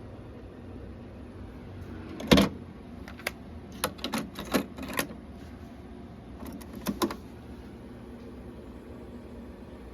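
Sanyo RD-S21 cassette deck's controls and transport mechanism clicking: one loud clunk about two seconds in, a quick run of clicks about a second later, and a pair of clicks near seven seconds, over a steady faint hum.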